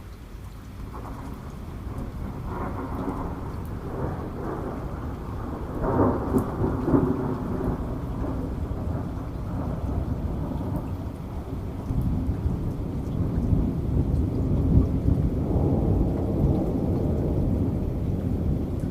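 Rain falling steadily while thunder rolls, building from about a second in to a sharper crackling peak around six seconds, then rumbling on and swelling again near the end.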